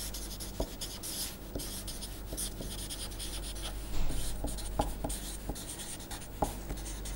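Felt-tip marker writing on paper: a soft scratching of the tip across the sheet as a word is written in cursive, with a few small ticks. A steady low hum underneath.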